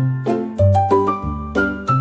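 Upbeat background music: a bouncy melody of short plucked or struck notes over a steady bass line.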